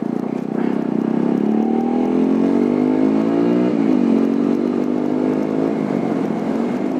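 TVS Apache motorcycle's single-cylinder engine pulling up through the revs, dropping in pitch at a gear change about four seconds in, then pulling again.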